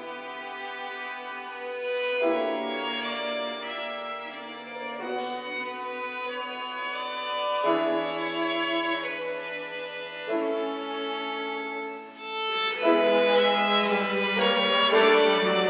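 Live chamber music from a trio of piano, violin and cello playing a slow classical miniature. The violin carries long held notes over the cello, and the chords change every couple of seconds. The music grows louder about two-thirds of the way through.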